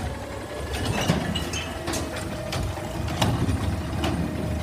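Automated side-loading garbage truck's engine running at idle, with a steady whine and several sharp clanks.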